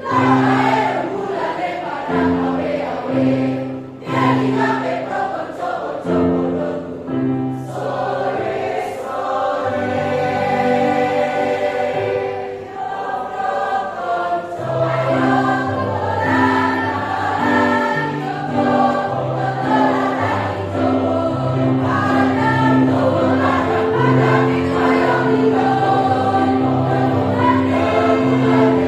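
A choir singing a song in parts, with sustained low notes under the voices.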